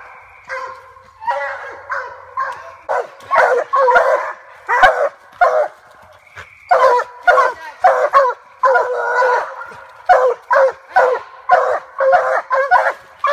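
Treeing Walker coonhounds barking treed at the base of a tree: several hounds giving a rapid, continuous string of loud barks, about two a second, some drawn out longer, the bay that tells hunters the dogs have a raccoon up the tree. The barking grows louder about three seconds in.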